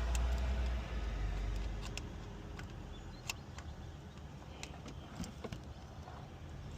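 Scattered faint clicks and taps of hands and tools working among the hoses and fittings in a car's engine bay. A low rumble fades out over the first couple of seconds.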